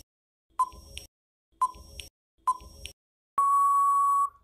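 Countdown timer sound effect: short beeps about once a second, three in all, then one long steady beep for time-out.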